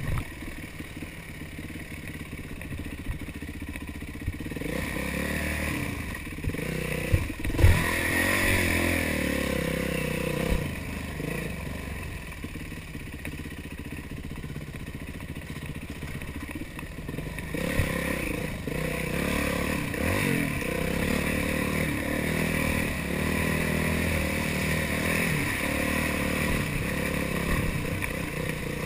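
Yamaha YZ450F dirt bike's four-stroke single-cylinder engine running under way, getting louder as the throttle opens about four seconds in, easing off around ten seconds, and opening up again from about eighteen seconds, with clattering from the bike. A single sharp knock stands out about seven and a half seconds in.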